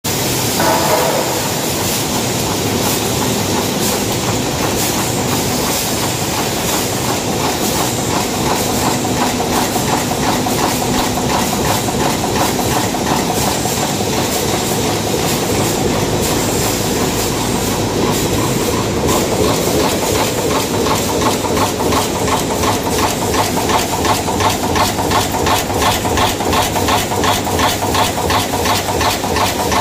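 Cold heading screw-making machine running, its punches striking wire blanks in a fast, even clattering rhythm over a steady mechanical din. The strokes stand out more clearly in the second half.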